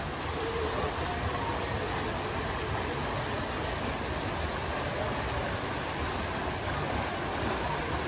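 Steady rush of water running down water slides and splashing into a shallow pool.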